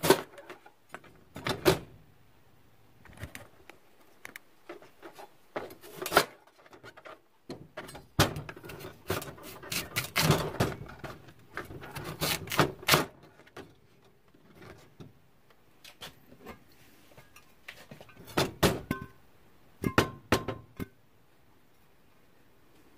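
Scattered knocks, clicks and clatter of household items being handled, with a busier stretch of rustling and clatter about eight to thirteen seconds in.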